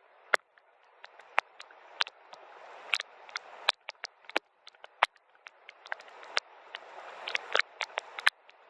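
Soft rain: many separate drops tapping sharply and irregularly over a steady hiss of rainfall that swells and fades a couple of times.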